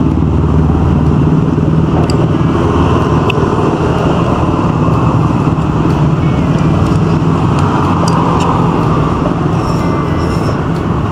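Steady road traffic: motor vehicle engines running and passing in a continuous, loud hum, with a few short clicks.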